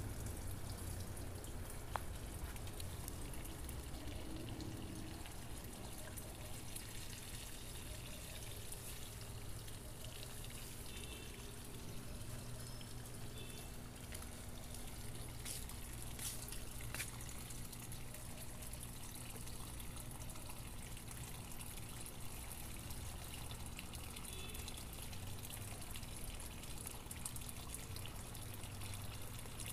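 Water trickling and pouring steadily from a garden hose onto plants and soil, with a low rumble underneath and a few faint clicks.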